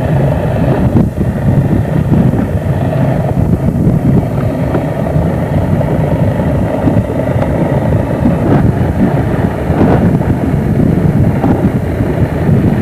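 Steady low rumble of a boat's engine running, mixed with wind buffeting the microphone.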